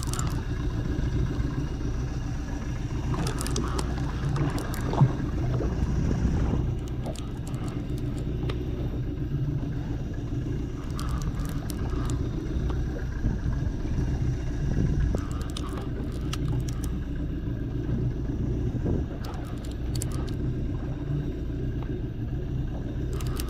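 Boat motor running steadily with a low hum while the boat is underway. Scattered clicks and scrapes close to the microphone come and go, with one sharp knock about five seconds in.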